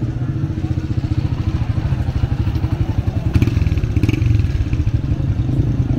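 Motorcycle engine running close by: a steady, low, rapid putter, with a brief clatter a little past halfway.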